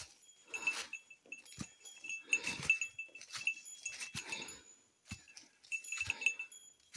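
A hiker breathing hard while climbing, about one breath every two seconds, with footfalls on the trail.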